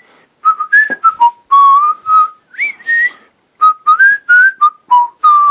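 A man whistling through puckered lips: a quick melody of a dozen or so short notes, some sliding up in pitch, with brief gaps between them.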